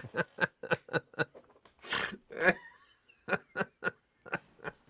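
Two men laughing hard, in short rapid breaths of about five a second that break off twice for a moment.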